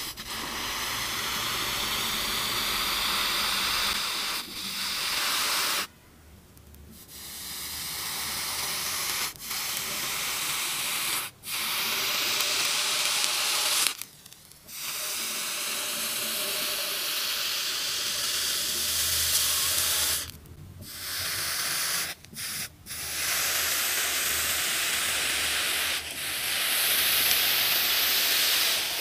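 A heated ball held in tongs hisses steadily as it melts into a block of ice and turns the meltwater to steam. The hiss breaks off several times when the ball is lifted from the ice, then starts again at each new contact.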